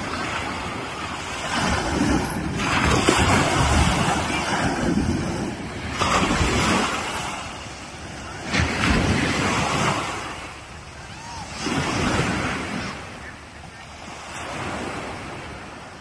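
Small waves breaking on a sandy beach: a rush of surf that swells and fades again about every three seconds.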